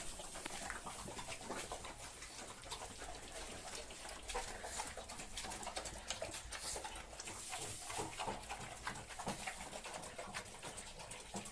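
Rottweilers, a German shepherd and a pug eating a wet mash of polenta and ground chicken giblets from bowls: a continuous run of irregular lapping, slurping and chewing clicks.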